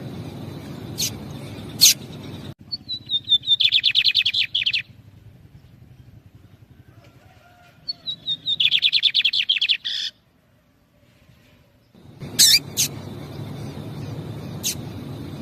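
Lined seedeaters (bigodinho): sharp single call notes at the start and again near the end, and twice a song of a few falling notes that runs into a fast, buzzy trill. The calls and the answering trilled song are the pair's exchange, female calling and the male responding.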